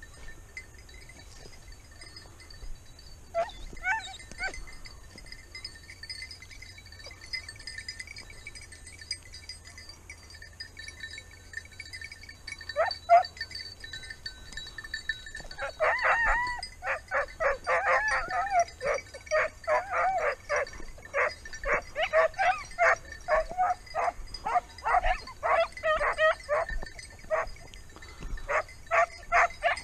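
Hunting dogs barking while trailing a hare: a few single barks, then from about halfway a rapid, continuous run of barks, two or three a second.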